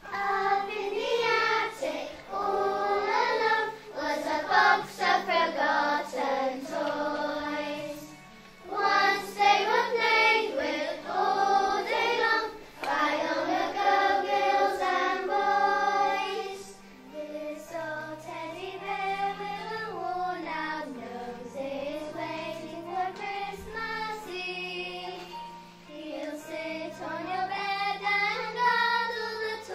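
A group of young children singing a song together over a musical backing track; from about halfway the singing thins to fewer voices.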